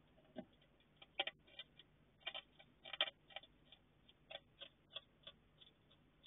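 Hedgehog crunching dry food: an irregular run of small crisp crunches and clicks as it chews, several a second.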